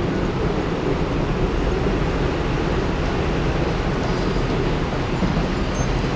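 Steady low rumble of nearby traffic, with no distinct events.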